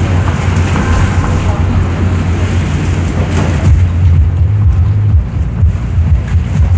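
Wind buffeting the microphone over the low rumble of a boat underway on choppy water. The higher splashing hiss fades about three and a half seconds in, leaving mostly the gusty low rumble.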